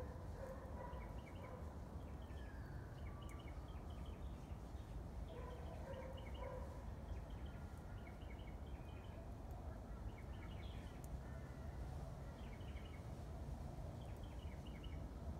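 Birds calling: bursts of short, high chirps repeated throughout, with a lower held call twice, over a steady low rumble.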